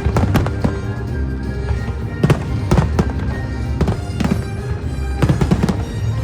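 Fireworks shells bursting in a rapid, uneven series of bangs and crackles over loud music from the show's soundtrack.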